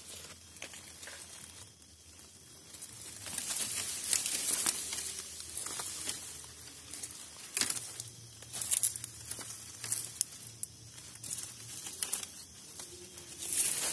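Dry bamboo leaves and twigs rustling and crackling in irregular crunches and snaps as someone moves through the leaf litter and handles the stems. The crackling is quieter for the first couple of seconds.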